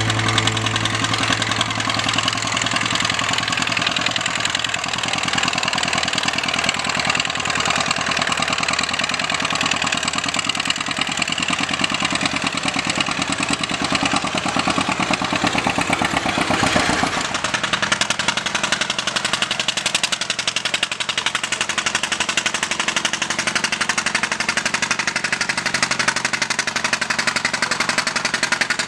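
A pulling vehicle's engine running loud and hard with a fast, dense firing pulse; its deeper tone drops away a little over halfway through.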